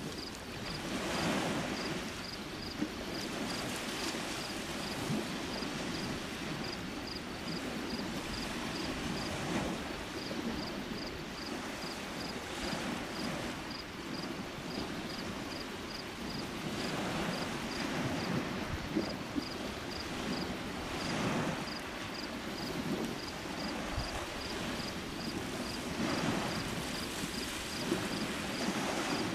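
Small lake waves washing in at the shoreline, swelling every few seconds over a steady rushing background, with wind on the microphone. A faint high-pitched ticking repeats about twice a second throughout, with short gaps.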